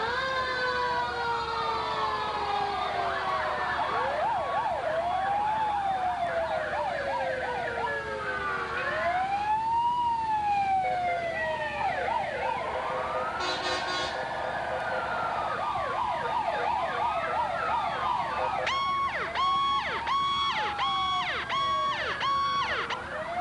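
Several fire engine sirens sounding at once, overlapping slow rises and falls in pitch mixed with faster warbling. In the last few seconds a pulsed tone sounds about twice a second over them.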